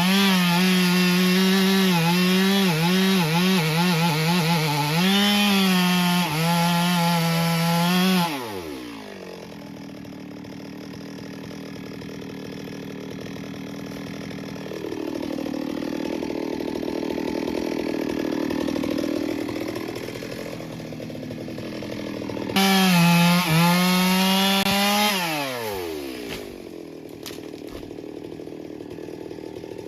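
Two-stroke chainsaw cutting wood at full throttle, its pitch dipping and recovering as the chain bites, then dropping to idle about eight seconds in. Near the middle it runs a little higher for several seconds, then it is revved up sharply once more and falls back to idle.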